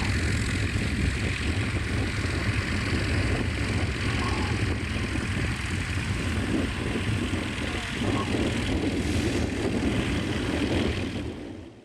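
Cessna L-19 Bird Dog's six-cylinder Continental O-470 engine and propeller running steadily, fading out near the end.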